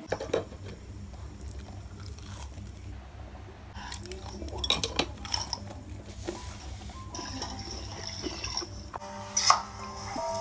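Metal chopsticks clicking against a wooden plate, with eating sounds, over a steady low hum. The clicks come scattered, clustered around the middle, with one loud click near the end.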